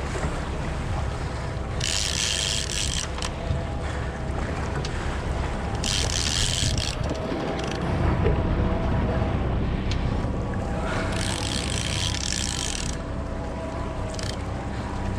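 Open-sea boat ambience: a motor running low and steady under wind and water noise, with a hiss that swells and fades every four or five seconds.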